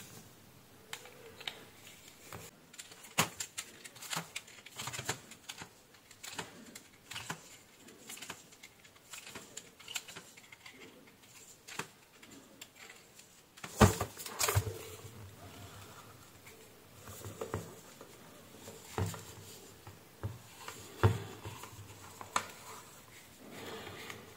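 Scattered small clicks and taps of handling: pliers and the metal nozzle of an electric desoldering gun knocking against its plastic body as the nozzle is worked on. There is a sharper knock about fourteen seconds in.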